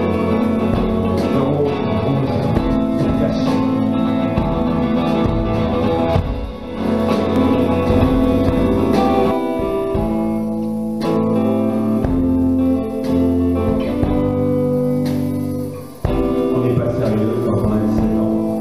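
Live electric guitar playing an instrumental passage of held, changing notes, with two brief drops in loudness partway through.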